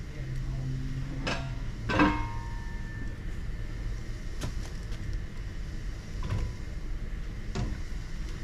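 Metal clanks and knocks from a billet crankshaft being handled and set on a balancing machine's sensor stands, with one sharp clank and a short metallic ring about two seconds in and a few lighter knocks later. A steady low hum runs underneath.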